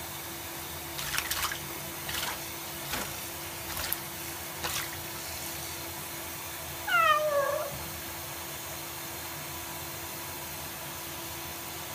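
Tap water running steadily into a filled sink where a cat is lying, with a few small splashes in the first five seconds. About seven seconds in the cat gives one meow that falls in pitch.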